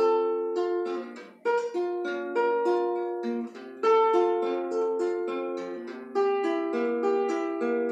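Nylon-string classical guitar, capoed, played solo: a melody of single plucked notes over a bass line, with short breaks about a second and a half and three and a half seconds in.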